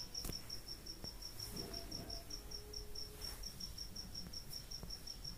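A cricket chirping steadily and faintly: a high, even pulse repeating about seven times a second, with a few soft clicks.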